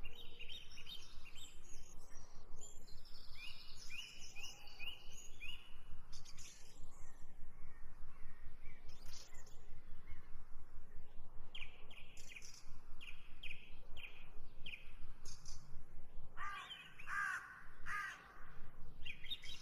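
Small birds chirping in quick repeated series, and a crow cawing near the end, over a steady run of soft ticks at about four a second.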